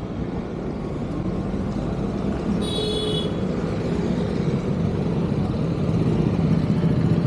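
Motor vehicle engine running in street traffic, growing slightly louder, with a short high-pitched beep about three seconds in.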